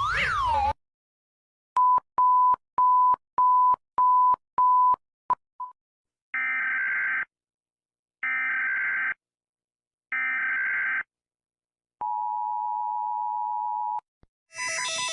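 Emergency alert tones played back to back. A warbling siren cuts off near the start, and about half a dozen short high beeps follow. Then come three one-second bursts of the screeching EAS data header, and the two-note EAS attention tone is held for about two seconds.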